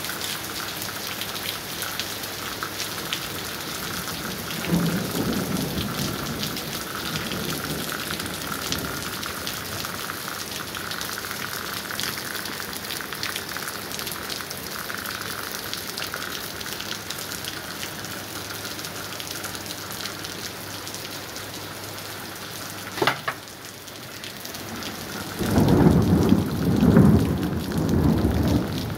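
Heavy rain pouring steadily onto a street and porch. Thunder rumbles faintly about five seconds in. Near the end there is a sharp crack, then a loud, rolling rumble of thunder.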